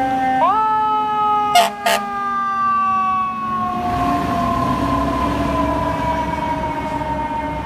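Fire engine siren sounding loud as the truck passes: the pitch jumps up about half a second in, then slowly falls for the rest of the time. Two short loud blasts cut through about a second and a half in, and a low engine rumble rises as the truck goes by close, about four seconds in.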